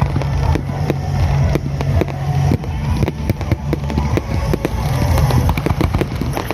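Fireworks going off in quick succession, many sharp bangs and crackles several a second, with music playing underneath.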